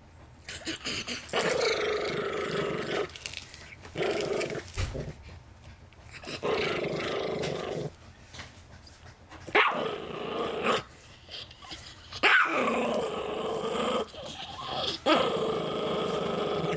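Chihuahua–miniature pinscher mix growling and snarling in about six bouts of one to two seconds each, with short pauses between. The dog is guarding its peanuts.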